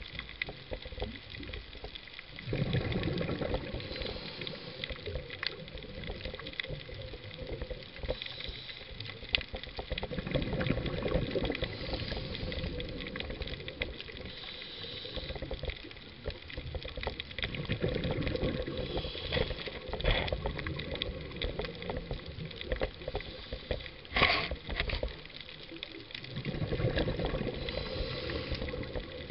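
Scuba diver breathing through a regulator, heard underwater: four gurgling bursts of exhaled bubbles, roughly every eight seconds, with a hissing inhale between them, over a constant fine crackle in the water. A single sharp knock comes about two-thirds of the way through.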